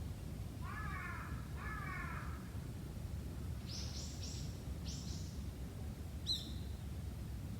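A crow caws twice, harsh and ragged, then a smaller bird gives a quick run of four high calls and one sharp chirp near the end, over a steady low background rumble.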